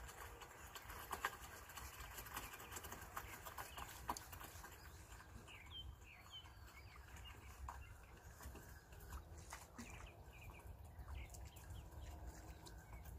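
Faint birdsong: many short rising chirps from about five seconds in, over a low wind rumble. A few sharp clicks come in the first four seconds.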